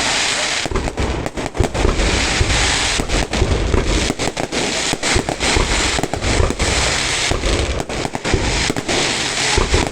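Fireworks going off in a dense, continuous barrage: many sharp bangs over steady crackling, with deep booms throughout.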